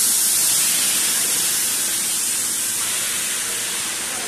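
Sesame-seed optical colour sorter running, giving a steady, high hiss.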